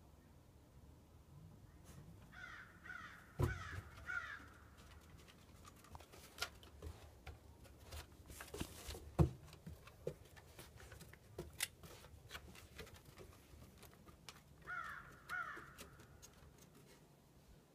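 A run of about four short, harsh animal calls, then two more near the end, with footsteps, knocks and clicks on a wooden porch deck in between; the sharpest thumps come about three and a half seconds and nine seconds in.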